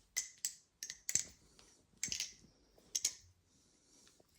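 Balisong trainer being flipped through palm fans: its metal handles and blade clack against each other and on their pivots in a string of sharp clicks, some in quick pairs, spread irregularly every half second to a second.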